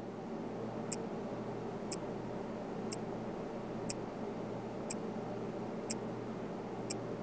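A watch ticking once a second: seven short, sharp clicks evenly spaced, over a steady low hum.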